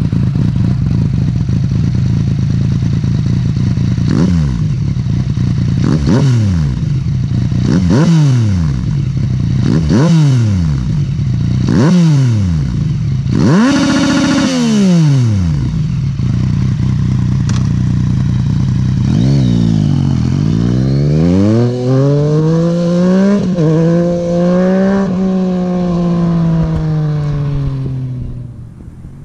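Yamaha MT-09's 847 cc inline-three through a full Termignoni Relevance carbon exhaust with no catalytic converter and no dB-killer. It idles, then is blipped sharply five times about two seconds apart, followed by a longer rev held for a couple of seconds. After a short idle comes a slower rise and fall in engine speed over several seconds, which dies away near the end.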